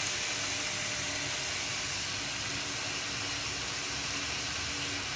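Diced pork and garlic cloves frying in a pan, a steady sizzling hiss, as oyster sauce and dark soy sauce are stirred in.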